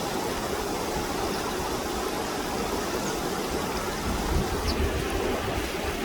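Running water rushing steadily, with a few faint, short bird chirps high above it.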